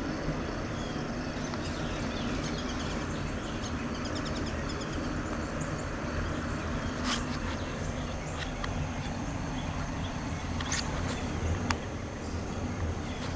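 Steady low mechanical drone of the GREC biomass incinerator, mixed over pond ambience. A continuous high insect buzz runs throughout. Bird chirps come a few seconds in, and a few sharp clicks come later.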